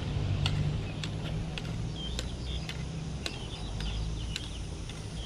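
Floorball stick blade tapping a plastic floorball back and forth while dribbling on a concrete court: light, sharp clicks at an irregular pace, roughly one or two a second.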